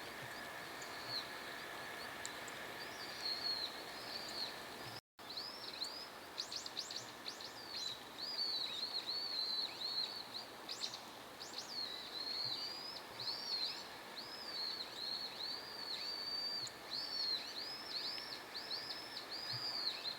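A small songbird singing a long, quick, high twittering song of rising and falling notes over a steady faint hiss. The sound cuts out for a moment about five seconds in.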